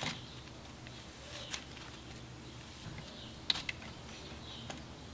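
Drizzly cloud slime being stretched and let fall, giving a few faint, sharp crackling clicks spread out over a light hiss.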